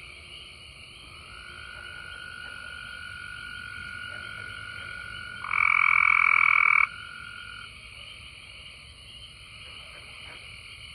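A chorus of frogs singing, a steady trilling throughout. About halfway through, one frog calls much louder and nearer for just over a second.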